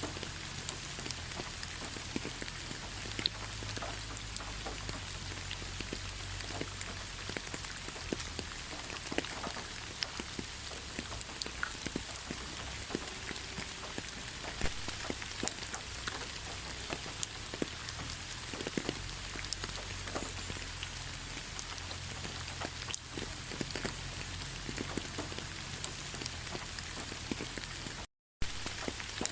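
Steady rain, an even hiss with many individual drops ticking on a surface. The sound cuts out completely for a split second near the end.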